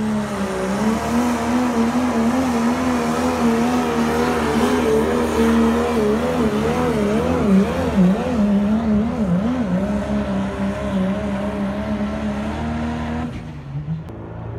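Diesel pickup truck engine at full throttle pulling a weight-transfer sled, held at high revs with its pitch wavering up and down in the middle of the run. The sound cuts off abruptly about thirteen seconds in.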